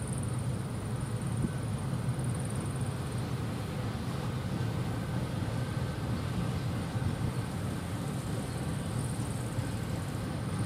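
Open freight wagons of a long freight train rolling past, a steady low rumble of wheels on the track with no distinct rail-joint clicks.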